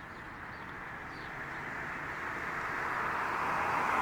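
A road vehicle approaching, its tyre and road noise swelling steadily louder.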